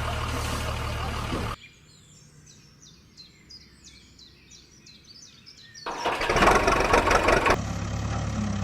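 Steady engine drone that cuts off abruptly about a second and a half in, leaving birds chirping for about four seconds. Near the end a loud, rough engine noise comes in and settles into a steady drone.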